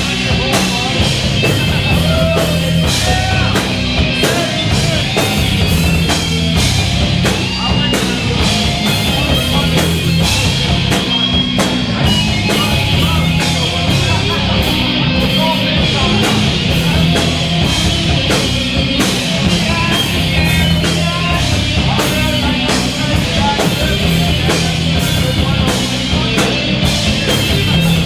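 Live rock band playing loud: electric guitar, bass guitar and drum kit, with a steady beat of drum hits.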